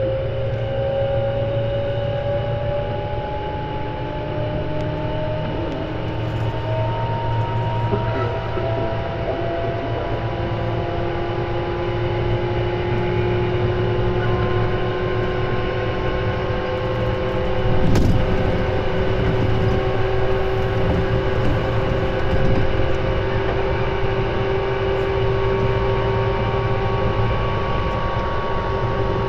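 Tobu 10030 series electric train running, heard from inside the car: a whine from the traction motors and gears slowly rises in pitch as the train gathers speed, then holds nearly level, over a steady rumble of wheels on rail. A single brief knock comes about eighteen seconds in.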